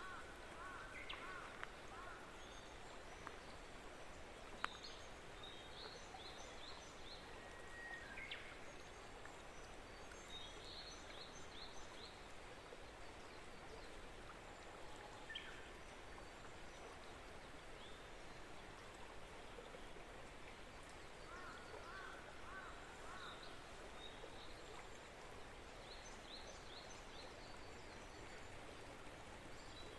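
Small songbirds singing faintly over a steady background hiss. Short runs of quick, repeated high notes come every few seconds, some higher-pitched and some lower.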